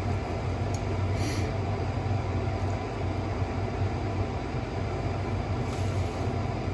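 Steady static-like hiss with a low hum from an electric faux fireplace, with two brief soft hisses, one about a second in and one near the end.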